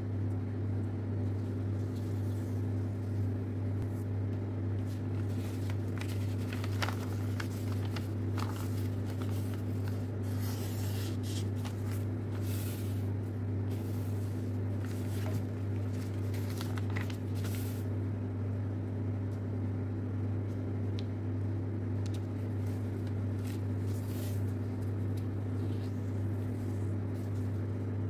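A steady low mechanical hum, with now and then short soft rustles of paper being folded and creased by hand.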